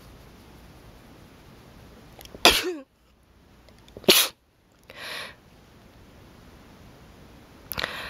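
A person sneezing in a fit: three loud, sudden sneezes, the first with a falling voiced 'choo', the second about a second and a half later, and the third near the end, with a softer burst between the second and third.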